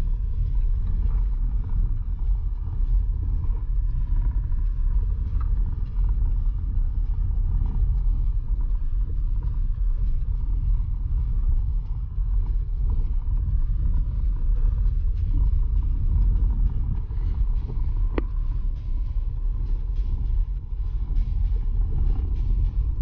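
Steady low road and engine noise of a car being driven, with a single brief click about eighteen seconds in.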